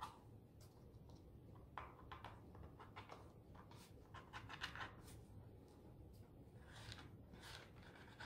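A series of short, faint scratching strokes from a pointed tool scraping black acrylic paint off a crayon layer on paper to draw lines.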